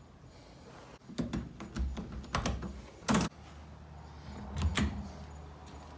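A door being handled: a run of clicks and knocks as a brass doorknob is grasped and turned, with the loudest knock about three seconds in and a few softer ones near the end.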